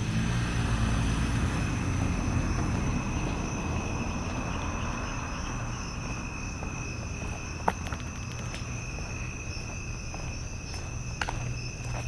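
Crickets and other night insects trilling steadily in two constant high-pitched layers. A passing vehicle's noise swells and fades over the first half, and a few sharp clicks come near the end.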